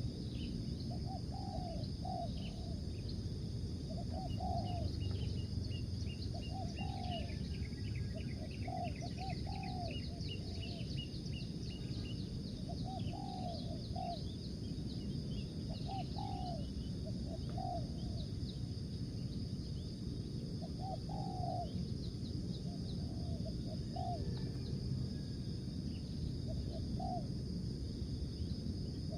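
Spotted dove cooing over and over, short phrases of two or three notes repeating every couple of seconds. Faint high chirps from other birds or insects sound above it, over a steady low background rumble.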